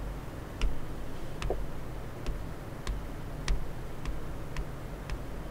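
Footsteps of slippers clicking on a tiled floor, a sharp click a little under twice a second with a soft thud under some of them, and a brief low squeak about one and a half seconds in.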